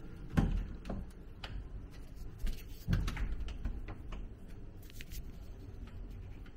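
Wooden wardrobe door being opened, with a knock about half a second in and another near three seconds, and a few lighter clicks and taps.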